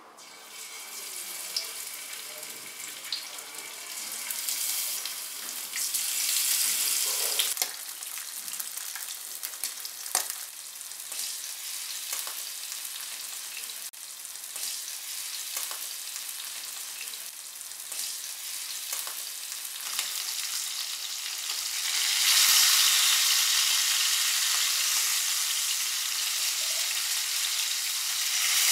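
Marinated fish pieces sizzling as they shallow-fry in hot oil, with scattered spits and crackles; the sizzle gets louder about three-quarters of the way through.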